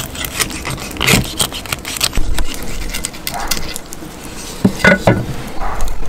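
Cleaver cutting the head off a mackerel on a wooden chopping board: several sharp knocks of the blade against the wood, with handling sounds as the fish is worked by hand.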